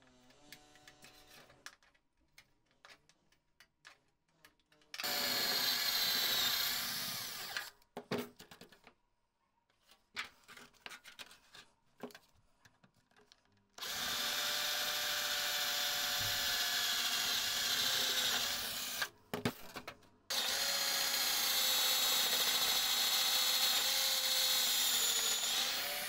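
Power drill with a step drill bit boring through thin sheet metal in three runs of a few seconds each, a steady high whine as the bit cuts. Before the first run, faint clicks of tin snips cutting the sheet.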